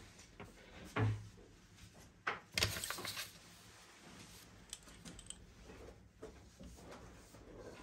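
Loose sheets of paper being shifted on a drawing desk. There is a dull knock about a second in, then the paper slides and rustles for about a second around the three-second mark, with faint taps and pencil scratches otherwise.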